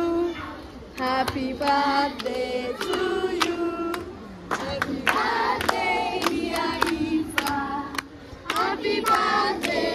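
A large group of children singing together in chorus, with handclaps.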